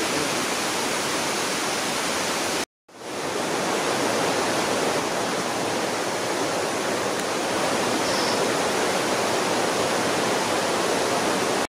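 Steady rush of fast-flowing water from a mountain stream or waterfall, a dense even hiss, cut off for a moment a little under three seconds in.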